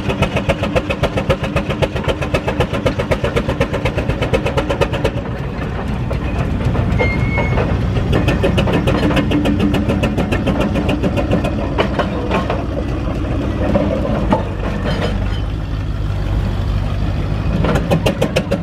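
1929 Burrell steam road roller running under steam, its exhaust beating in a rapid, even rhythm.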